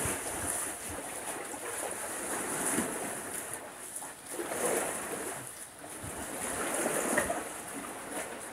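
Small waves lapping and washing against the rocks and pier pilings at the water's edge, swelling and falling back every two or three seconds.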